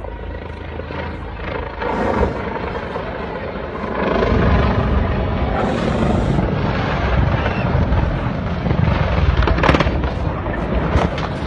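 Helicopter rotor and engine noise, becoming much louder and heavier about four seconds in, with a sharp crack near the end.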